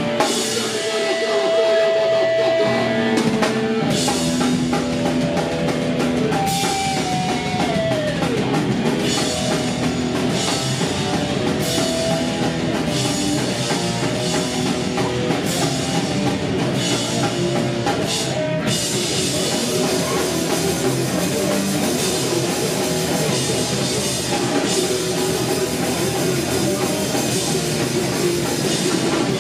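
Live band playing loud, distorted heavy rock on electric guitars and a drum kit. A held note slides down in pitch about seven seconds in.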